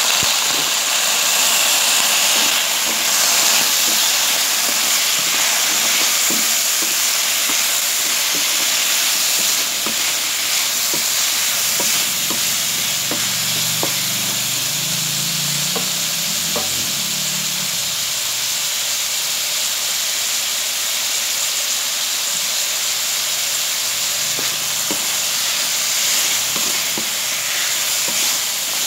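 Squash pieces frying in hot oil in a non-stick pan: a loud, steady sizzle, with a wooden spatula scraping and tapping the pan as it stirs.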